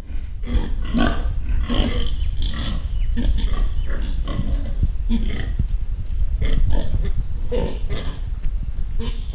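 Pigs grunting and calling again and again in short, irregular calls over a steady low rumble.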